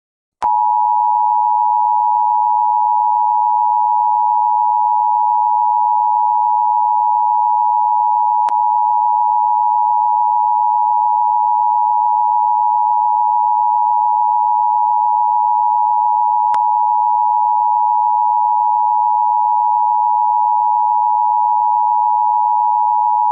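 Emergency Alert System two-tone attention signal: a loud, steady dual tone that starts about half a second in and holds unbroken, with faint clicks about every eight seconds.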